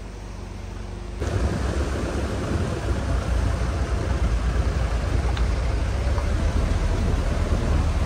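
Suzuki Mehran car driving over a rough, rocky dirt track, heard from the car: a loud, steady low rumble with a broad rushing noise over it. It starts as a quieter steady hum and jumps abruptly louder about a second in.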